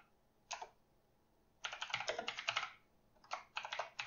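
Typing on a computer keyboard: a brief keystroke about half a second in, a quick run of keystrokes from just under two seconds in, then another short flurry near the end.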